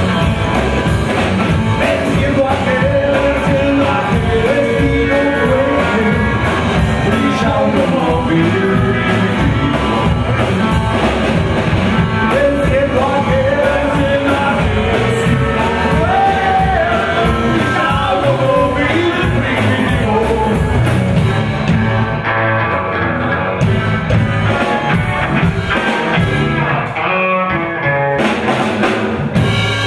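Live rockabilly trio playing: electric guitar, upright double bass and drum kit, with a man singing lead over the band.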